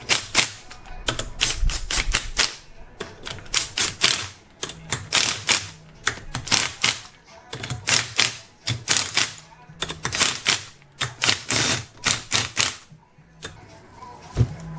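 Ratchet wrench clicking in quick runs of several clicks with short pauses between, as the ring gear bolts are run down in a crisscross pattern. A couple of duller knocks near the end.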